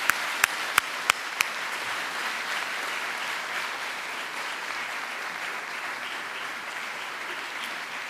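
Audience applauding steadily, with a few sharp, louder single claps close to the microphone in the first second and a half.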